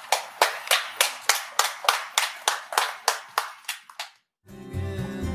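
Hand clapping at a steady beat of about three claps a second, fading out about four seconds in. Country-style guitar music starts just after.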